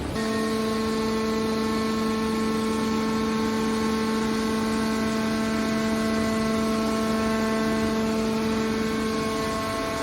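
Hydraulic scrap car baler running: a steady mechanical whine from its pump and motor over a rushing machine noise, holding one pitch throughout.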